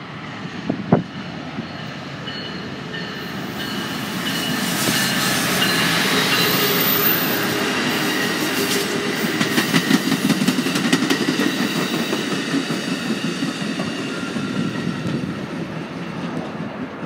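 Amtrak California passenger train, led by a Siemens Charger diesel-electric locomotive and made up of bi-level coaches, passing close by on the near track. It grows louder over the first few seconds, then the coach wheels clickety-clack over the rail joints through the middle, easing off near the end as the rear car goes by.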